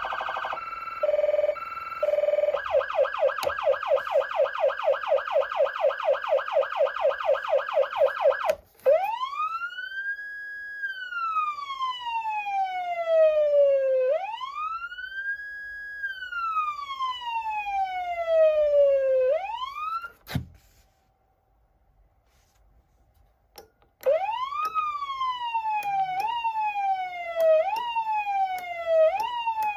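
Federal Signal Unitrol electronic siren amplifier sounding through its speaker. First a fast yelp sweeps up and down about six times a second. Then a slow wail rises, holds and falls twice before cutting off with a click. After a few seconds' silence the manual siren is pulsed: its pitch jumps up in short surges about once a second and slides back down between them.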